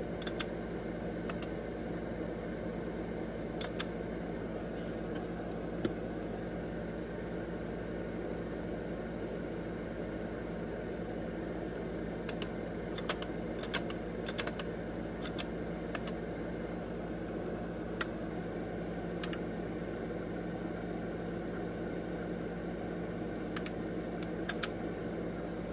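Keys of an IBM 5110 computer keyboard clicking in scattered presses, singly and in a short cluster about halfway through, over the steady hum of the running computer.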